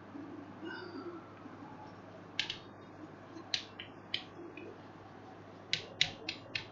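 Chalk tapping and scratching on a blackboard as words are written: about ten short, sharp clicks at uneven intervals, coming faster near the end.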